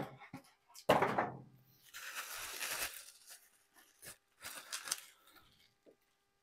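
Plastic packaging bag being torn open and crinkled while braided stainless-steel hoses are pulled out of it. There is a sharp thump about a second in, and the crackling comes in two spells, the longer one about two seconds in and a shorter one near five seconds.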